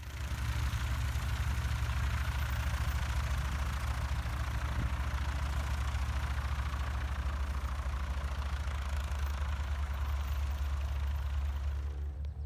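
Cessna 172's piston engine and propeller running as the light aircraft rolls along the runway: a steady, pulsing drone with a rushing hiss above it.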